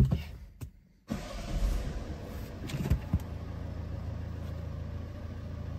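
2016 Citroen DS4's 2.0 HDi four-cylinder diesel engine starting. A short loud knock comes at the very beginning, then about a second in the engine fires, swells unevenly for a moment, and settles into a steady idle, still below operating temperature.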